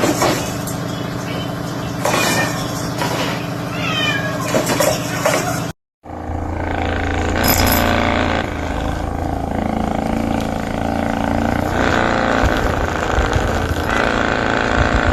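A cat meowing a few short times over a steady low hum. The sound then cuts off suddenly and gives way to a steady noise with a low hum.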